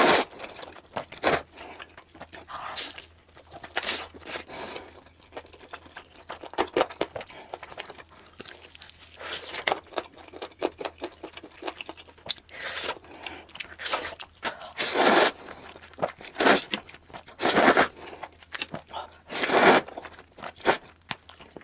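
Close-miked eating of Buldak spicy stir-fried instant noodles, played back sped up: a run of quick chewing and mouth sounds, with several louder ones towards the end.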